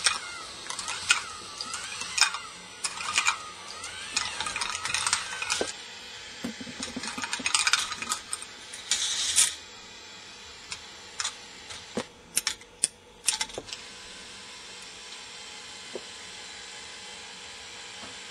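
K'nex ball machine running: plastic balls rolling, clicking and clattering along K'nex tracks and lifts. The rattling is dense for the first several seconds, thins to a few separate knocks, and then gives way to a steady background noise.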